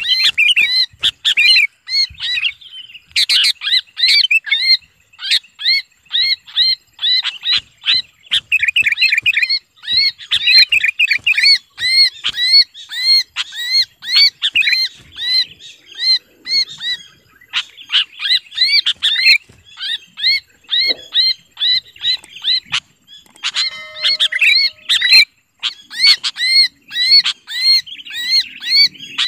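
Sooty-headed bulbul held in the hand, giving harsh, rapidly repeated distress screams, about three or four short notes a second: the alarm of a captured bird that is being held.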